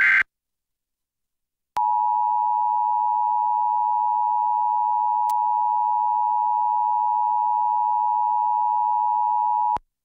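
Emergency Alert System broadcast of a tornado warning: the tail of a SAME header data burst, then after a second and a half of silence the two-tone EAS attention signal (853 and 960 Hz together) sounds steadily for about eight seconds, with one faint click midway, and cuts off. The attention signal announces that the warning message is about to be read.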